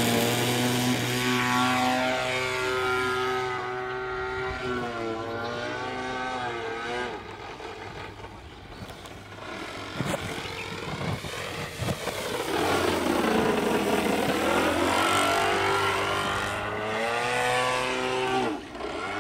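Gasoline engine of a radio-controlled aerobatic plane taking off and flying manoeuvres. The engine note is loud at first and falls in pitch and level, grows faint around the middle, then comes back stronger with its pitch swooping down and up again several times.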